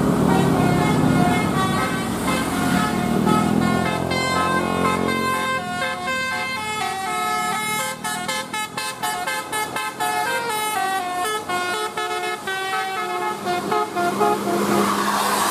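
Bus telolet horn, a multi-tone air horn, playing a quick tune of short notes that step up and down. The bus engine runs underneath for the first few seconds.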